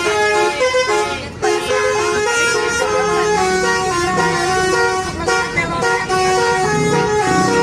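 Tour bus telolet horn playing a tune: a run of steady horn notes that jump from pitch to pitch, often several sounding together, with a brief break about a second and a half in.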